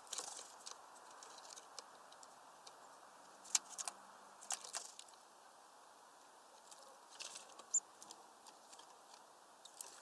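Great tits at a seed feeder: scattered sharp taps, clicks and rustles as the birds land, shuffle on the twig perches and peck at seeds, in clusters about three and a half seconds in and again about seven seconds in, with one brief high squeak among them.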